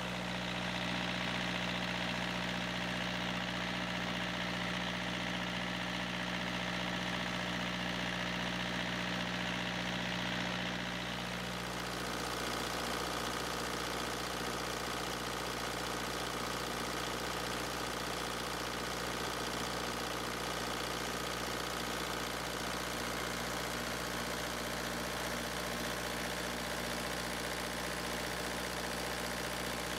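Kubota V2203 four-cylinder diesel engine idling steadily at low speed. About eleven seconds in the tone shifts, losing some hiss, and a faint regular pulse runs under the idle.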